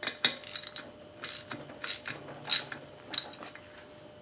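Socket ratchet clicking in short runs as head bolts are turned down into a small engine's cylinder head, a sharp click every half second or so.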